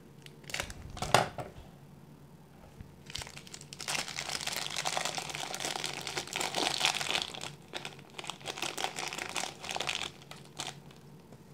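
Clear plastic wrapping crinkling and crackling as it is handled and pulled off a small plastic capsule case, after a couple of sharp clicks about a second in.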